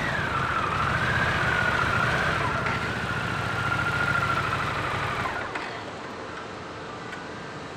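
Harley-Davidson Pan America motorcycles with their Revolution Max 1250 V-twin engines idling, a steady rumble with a high whine above it that dips slightly in pitch at first. About five and a half seconds in, the sound drops noticeably quieter and carries on steady.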